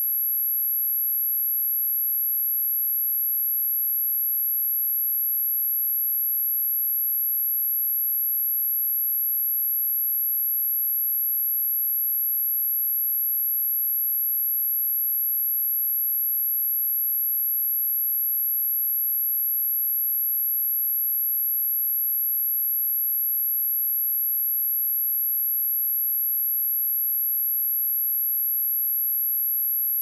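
A steady, unbroken 11636 Hz sine-wave test tone, one pure high-pitched whistle at a constant level, played as a speaker test and speaker-cleaning tone.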